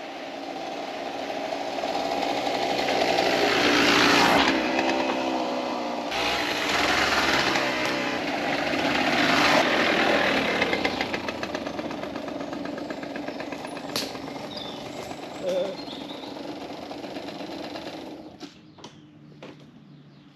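Motorcycle engine running as it rides along a dirt track, rising in loudness and revving as it comes close, loudest about 4 and 10 seconds in. It then runs on more quietly and cuts off near the end.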